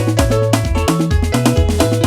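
Electronic keyboard playing a song with its built-in rhythm accompaniment: a bass line, chords and drum-machine percussion at a steady beat, recorded clean and direct from the keyboard's output into a phone.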